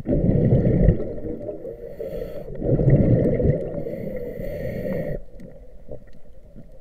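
Scuba diver's regulator exhaust bubbles heard underwater: two loud bursts of bubbles about two and a half seconds apart, one with each breath out, then quieter.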